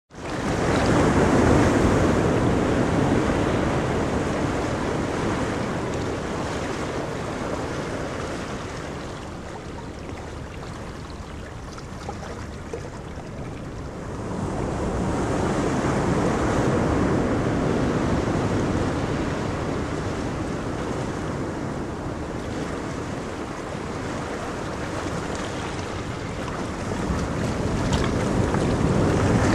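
Ocean surf breaking on a beach, the wash swelling and fading in long surges: loud near the start, again around the middle, and building once more near the end.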